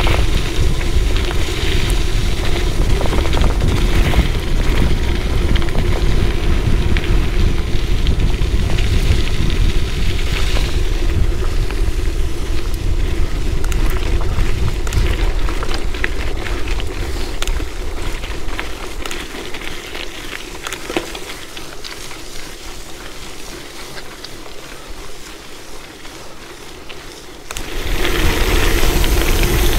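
Wind buffeting an action camera's microphone while a gravel bike is ridden fast, with tyres hissing on a wet road and grit ticking. It eases for a stretch about two-thirds of the way through, then comes back loud suddenly near the end.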